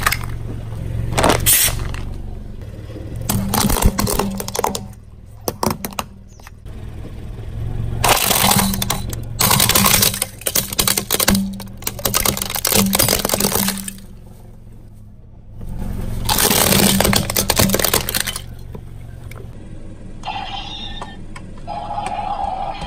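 A car tyre rolling slowly over brittle plastic toys and a woven bamboo basket, crushing them in repeated bursts of cracking and snapping, with a low steady hum from the car underneath.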